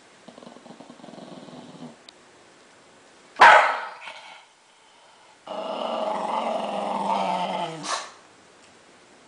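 Small dog growling at shoes it is guarding: a low growl, then one sharp bark about three and a half seconds in, then a louder growl of about two and a half seconds that ends in a short bark.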